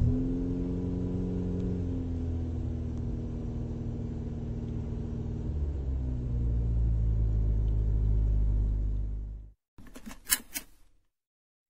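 Nissan Sunny sedan's engine running steadily, a low hum that grows a little louder about six seconds in and then cuts off suddenly. A few short sharp clicks follow near the end.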